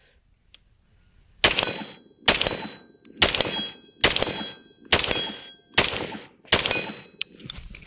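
An AR-15 rifle fires seven shots at a steady, fairly quick cadence, about one shot a second, starting about a second and a half in. A faint metallic ring from the steel target hangs between the shots.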